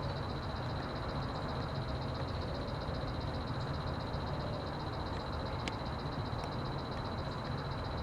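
Frogs calling in the background, a high, rapidly pulsing trill that holds steady, over a steady low rumble. A couple of faint clicks come about two-thirds of the way through.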